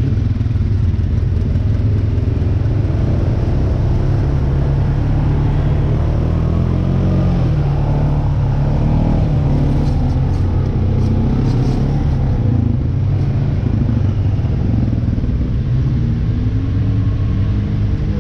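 Off-road vehicle engine running while under way: a steady low rumble whose pitch rises and falls a few times.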